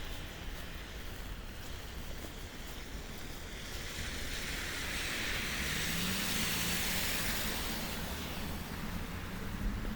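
A car passing on a rain-wet street: the tyre hiss swells from about halfway through, peaks, and fades near the end, with a low engine hum under it and steady traffic and rain noise behind.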